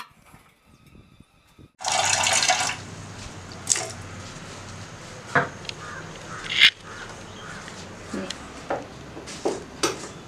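Kitchen noise: a loud burst of hiss about two seconds in, then a steady hiss with scattered sharp clicks and clinks.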